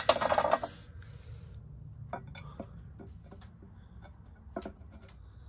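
Unglazed clay pot clattering and clinking against a stone plant stand as it is set down, followed by a few light scattered clicks as a hand works inside the pot.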